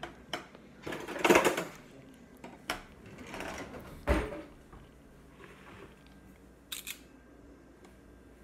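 Scattered clunks, clicks and rustles of kitchen handling, with a heavy thump about four seconds in and a quick double click near seven seconds, as a sour cream tub and spoon are being got ready.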